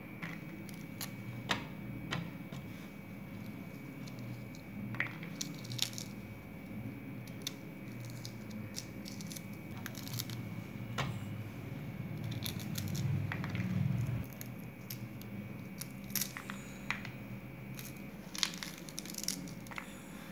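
Pomegranate being broken apart by hand, its peel and pith tearing and the arils dropping onto a plate in scattered small clicks and crackles.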